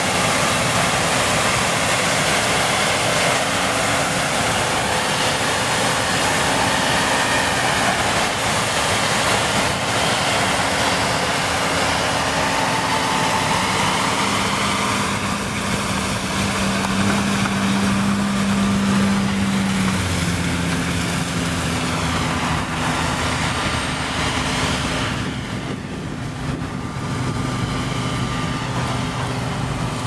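John Deere S690 combine harvester running at work in a corn field: a steady, loud machine noise of engine and threshing. A tractor pulling a grain cart alongside adds a steady engine tone in the middle, and the sound changes and eases a little in the last third.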